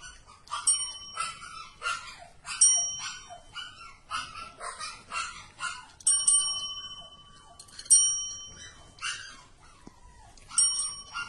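Desk call bells struck by a kitten's paw pressing the plunger, about five bright dings that ring on and die away. Between the rings come many short, high animal cries.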